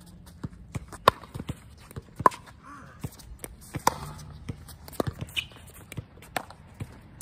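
Pickleball rally: a hard plastic ball popping off paddles, a sharp pop every second or so, with lighter taps and shoe scuffs on the court between hits.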